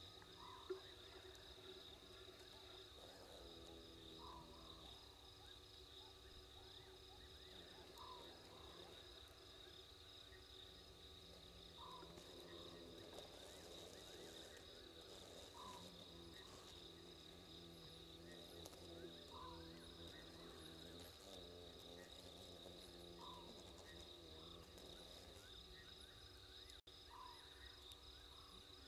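Faint night chorus of crickets chirring steadily, with a short animal call repeating about every four seconds. One brief click about a second in.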